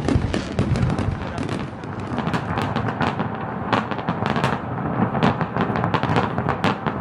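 Fireworks going off in a dense barrage of rapid, overlapping bangs and crackles, thinning after about two seconds into separate sharp cracks.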